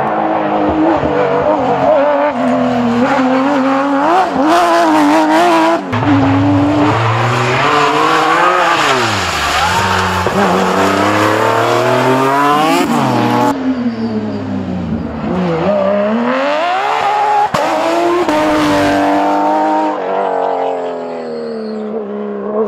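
Rally car engines revving hard as cars pass one after another, pitch climbing steeply through the gears and falling away on lifts and braking, several times over.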